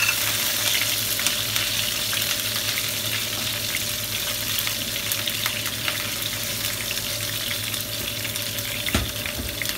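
Curry leaves and green chillies sizzling and crackling in very hot mustard oil in a frying pan, stirred with a wooden spatula. A dull knock sounds about nine seconds in.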